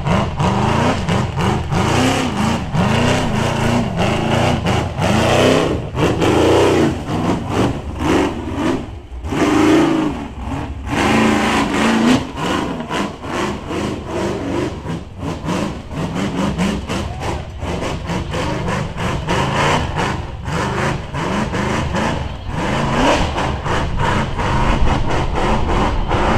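Rock-racing buggy's engine revving hard in rapid repeated throttle blips as it crawls and bounces up a rocky climb, with many sharp knocks and cracks mixed in.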